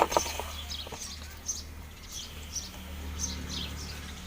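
Small birds chirping in the background, short high calls scattered throughout, over a steady low hum.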